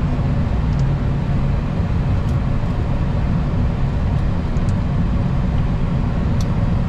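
Steady low rumble of a Boeing 737-800's flight deck, with a few faint ticks scattered through it.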